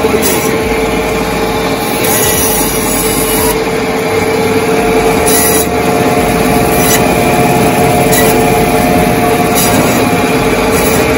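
A butcher's meat band saw runs steadily with a constant hum while bone-in meat is pushed through the blade and cut into cubes.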